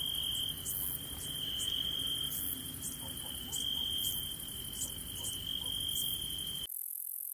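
Orthopteran insect song: a clear, steady high trill in phrases of about a second with short breaks between them, with faint high ticks. About six and a half seconds in, it cuts off and a higher, continuous hissing buzz takes over.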